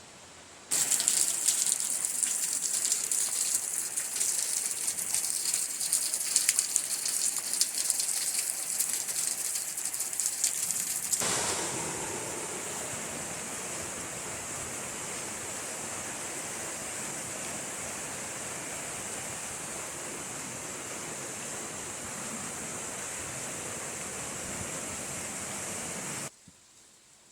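Rushing water of a waterfall or stream, a steady hiss of falling and splashing water. The first part is louder and brighter with crackling splashes. It changes abruptly about 11 seconds in to a steadier, fuller rush, which cuts off sharply near the end.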